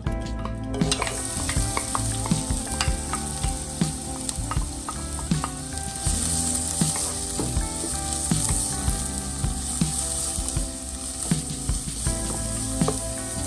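Food frying in hot oil in a pan, a steady sizzle that starts about a second in, with scattered clicks and scrapes of a utensil stirring it.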